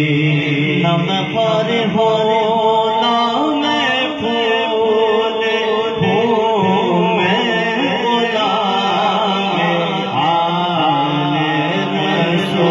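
Solo voice singing an Urdu manqabat (devotional praise poem) in a wavering, chant-like melody over a steady low drone.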